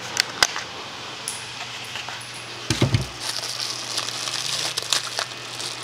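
A couple of sharp clicks, then a dull knock about three seconds in, with scattered lighter ticks, as plastic trim clips and panels are handled and pressed into place on a car body. A low steady hum runs underneath.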